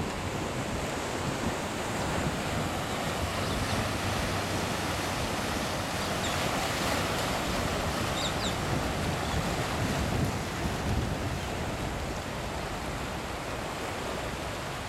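Ocean surf washing over and around shoreline rocks, a steady rush of water, with wind buffeting the microphone.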